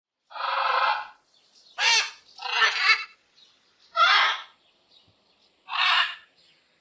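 Parrot squawking: five separate harsh calls, the first and longest lasting about a second, the others shorter, with short gaps between them.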